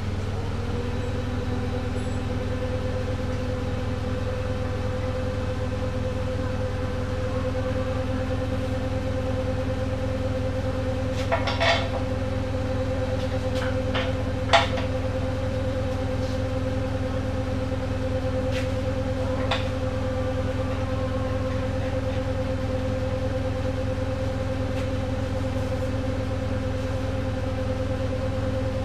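Steady mechanical drone from a running machine, a low hum with a higher whine that comes in and rises slightly at the start. Over it, a few sharp metal clanks of steel plow parts being handled sound around the middle, the loudest about halfway through.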